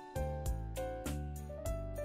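Background music: a light piano or keyboard tune over a steady beat with a bass line.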